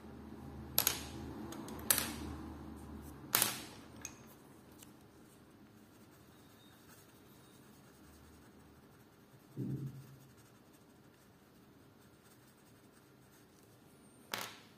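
Colored pencils clicking on a wooden table as one is picked up and later put back: three sharp clicks in the first four seconds and one near the end, with a soft low thump around the middle.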